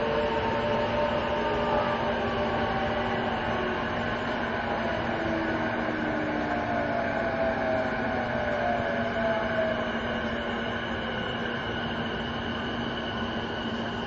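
Running sound inside an E233 series 2000 electric train car: the traction motor whine glides slowly down in pitch and the overall sound slowly fades, as the train slows. A steady hum runs underneath.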